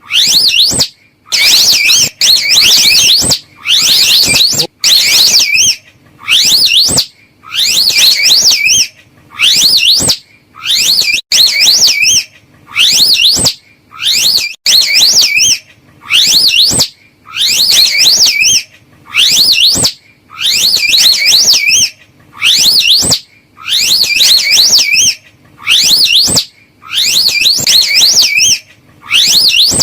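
Slow loris calling: a loud, shrill, rapidly warbling trill. Each call lasts about a second and repeats after a short break, about every second and a half.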